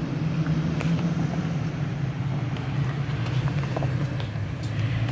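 A 2021 Toyota Tacoma pickup's engine running low and steady as the truck crawls slowly over loose rock, with a few light clicks of stones under the tyres.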